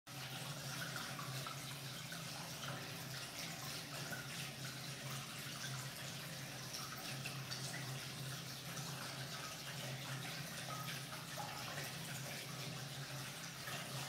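Water running down the panel of an indoor brushed stainless steel water wall and splashing onto the river rocks in its basin: a steady trickling splash, with a low steady hum underneath.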